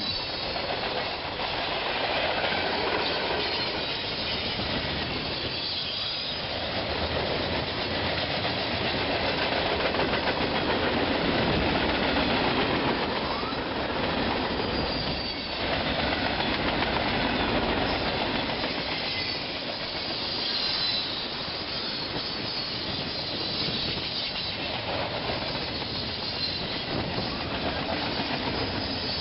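A train's cars rolling past on the track, wheels clattering steadily over the rails, with faint high wheel squeals now and then.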